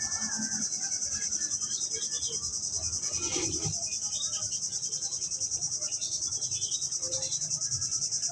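A steady, high-pitched chorus of insects trilling, pulsing evenly several times a second, with a few faint bird chirps.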